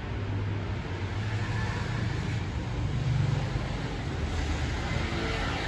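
Bus passing along the street, its engine a low steady drone that swells about three seconds in, over traffic noise.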